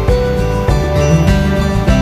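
Background music: a gentle acoustic guitar piece with a steady beat.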